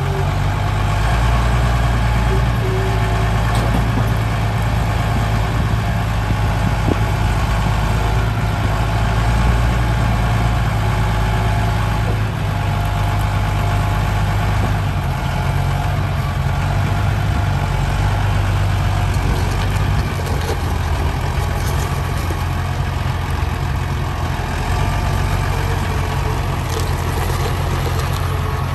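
Challenger MT525B tractor's diesel engine running steadily, its low note shifting slightly a few times as the tractor is moved about.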